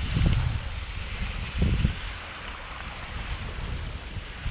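Wind buffeting the microphone in low gusts, once near the start and again a little under two seconds in, over a steady hiss of small waves lapping on a stony lakeshore.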